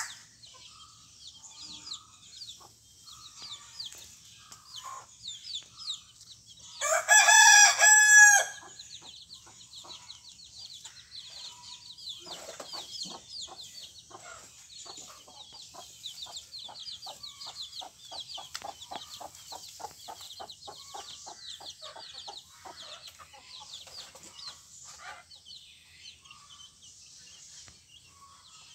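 Chicks peeping constantly in quick, high, falling cheeps, with a hen clucking low and rapidly through the middle stretch. About seven seconds in, a rooster crows once, loudly, for about a second and a half.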